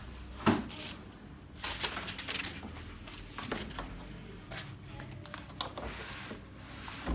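Handling noise as a flat-panel LED TV is turned over on a workbench: a sharp knock about half a second in, then scraping and rustling with several lighter knocks and clinks.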